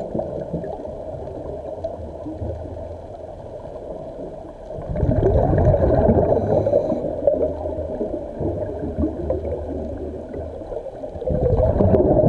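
A scuba diver's regulator heard underwater, its exhaled bubbles gurgling. The bubbling gets loud about five seconds in and again near the end, and stays quieter in between.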